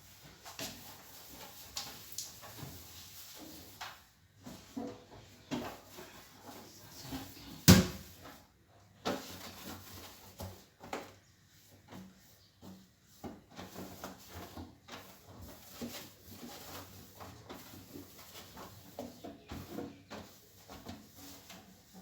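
Items being handled in a fridge during a clean-out: scattered knocks and clatter of containers and fridge drawers, with one sharp, much louder knock about eight seconds in.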